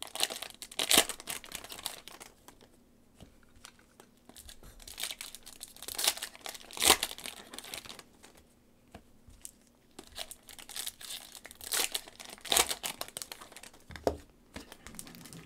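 Foil trading-card pack wrappers crinkling and tearing as gloved hands open packs and handle the cards, in bursts with quieter stretches between.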